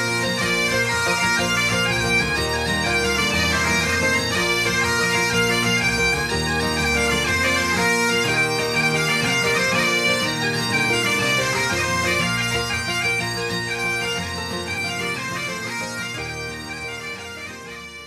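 Bagpipe music: a tune played over a steady drone, fading out near the end.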